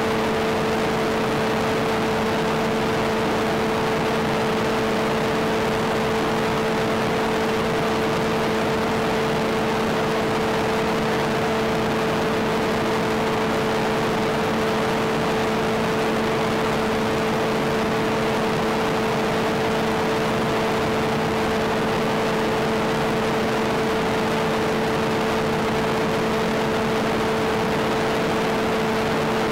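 Steady drone of a HiMax electric pusher motor spinning an APC 5.5x4.5 propeller at constant cruise throttle, a single unchanging hum over a hiss of rushing air and radio-link noise.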